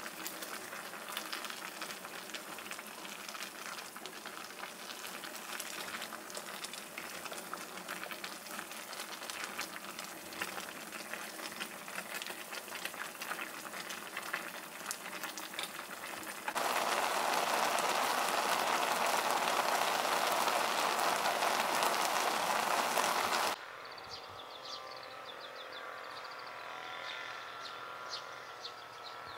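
Pot of cut vegetables simmering on a gas stove: a steady hiss with fine crackling. About two-thirds of the way through, a louder, even hiss takes over for about seven seconds. It cuts off suddenly, and birds chirp outdoors.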